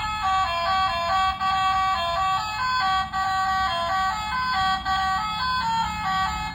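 Battery-powered toy car's sound chip playing a quick electronic tune of short notes, about four a second, over a low rumble.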